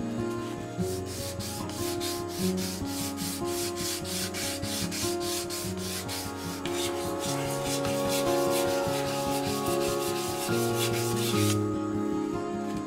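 220-grit sandpaper rubbed quickly back and forth on a Harri Merimaa knife, an even rasping of about four strokes a second that stops about a second before the end. Soft music plays underneath.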